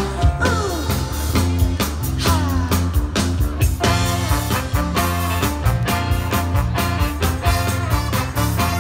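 Live soul band with a horn section, drums and electric guitars playing a number with a steady beat, recorded through a mobile phone's microphone from the crowd.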